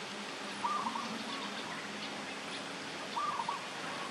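A bird calling twice, about two and a half seconds apart, each call a short burst of three or four quick notes, over a steady background hiss.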